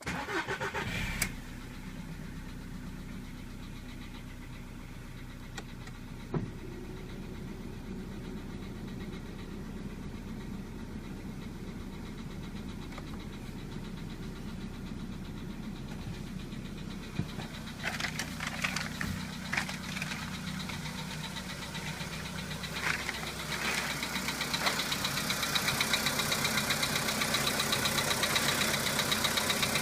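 Volkswagen Polo Sedan engine starting from cold, catching within about a second, then idling with a knock. The owner reports that the knock fades as the engine warms up. The running gets louder about two-thirds of the way through.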